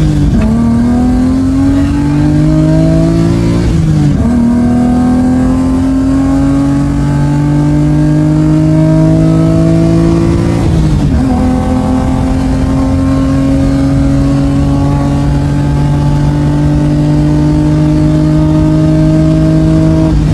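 Car engine heard from inside the cabin, accelerating hard and climbing in pitch through the gears. It upshifts right at the start, about four seconds in and about eleven seconds in, then makes a long, slow climb in the higher gear.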